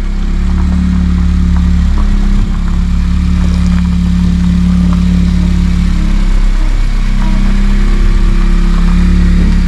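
Honda Civic Type R FN2's 2.0-litre four-cylinder engine running steadily, with a brief dip in its low hum about six seconds in.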